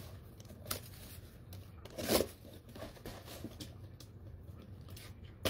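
Cardboard shipping box being handled and opened by hand: a few sharp knocks and scrapes, the loudest about two seconds in.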